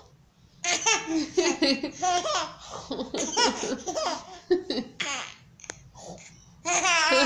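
Young baby laughing in repeated fits of belly laughs, in bursts that pause about five seconds in and start again near the end.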